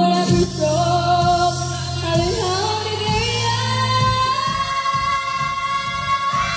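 A female vocal group sings live into microphones over amplified pop accompaniment with a steady bass line and drum beat. In the second half one voice holds a long, high note.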